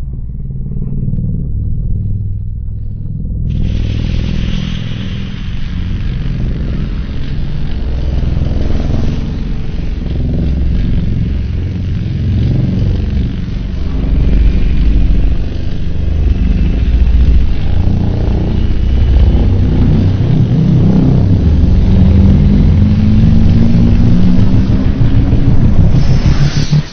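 Custom-made giant-monster sound effect: a long, loud, deep rumble that builds slightly, with a rising pitched tone in its last few seconds.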